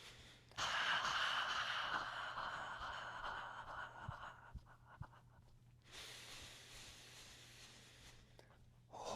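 A long, breathy voiced exhale, the heart sound "haaa" of the Six Healing Sounds qigong practice, starting about half a second in and fading over about four seconds. A second, softer breathy exhale follows a couple of seconds later.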